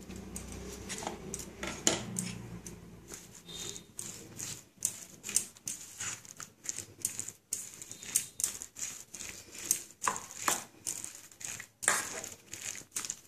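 Drumstick flowers being mixed by hand into thick besan batter in a stainless steel bowl: irregular clicks and scrapes of fingers and batter against the bowl.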